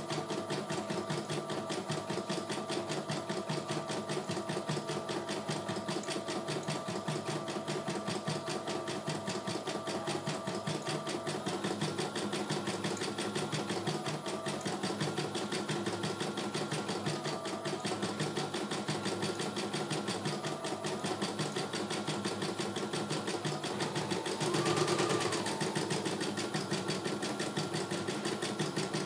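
CNY E900 computerised embroidery machine stitching out a design: rapid, steady needle strokes over a motor whine. About 25 seconds in there is a brief louder surge with a whine that rises and falls.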